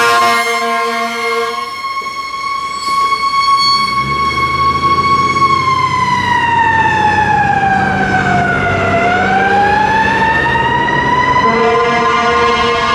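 Fire truck air horns blaring at the start, then its siren holding a high tone that slowly falls and rises again, with the diesel engine rumbling underneath as the truck drives off. The air horns sound again near the end.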